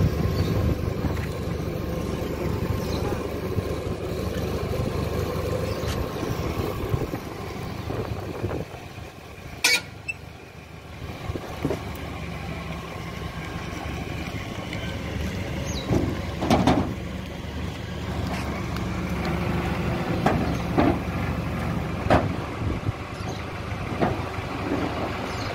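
Truck engine idling with a steady low rumble, which dips for a few seconds midway, broken by several short sharp knocks.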